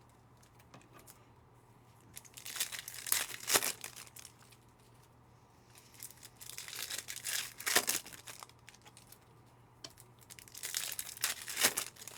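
Trading-card pack wrappers being torn open and crinkled by hand, in three separate bursts about four seconds apart.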